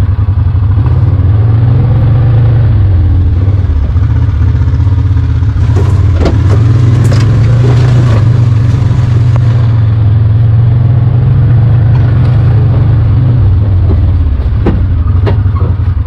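John Deere Gator utility vehicle's engine running steadily as it is driven, heard loud from the driver's seat. A few short knocks and rattles come through about six to eight seconds in.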